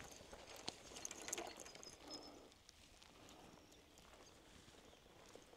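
Near silence: faint outdoor quiet with a few soft clicks and taps in the first two seconds and one brief high tone about two seconds in.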